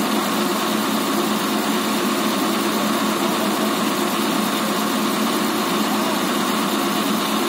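Diesel engine of a crane truck running steadily at idle, driving its knuckle-boom crane's hydraulics.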